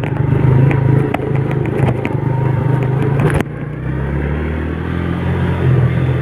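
Motor vehicle engine running steadily, with scattered clicks and rattles in the first half. About three and a half seconds in the sound changes abruptly and becomes a quieter, steadier engine hum.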